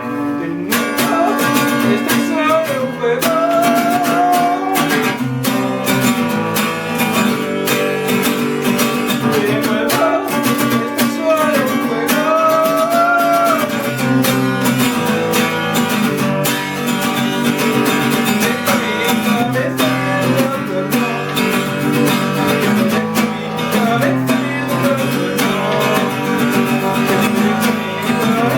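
Acoustic guitar music, strummed and plucked, with a melody line that may be a voice singing.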